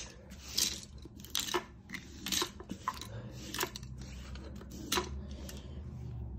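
Small hard plastic toys being handled on a play rug: light clicks and taps, about half a dozen spread over a few seconds.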